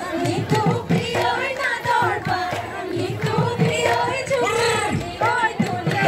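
Bihu folk music played live: voices singing a bending melody over quick, steady drum beats.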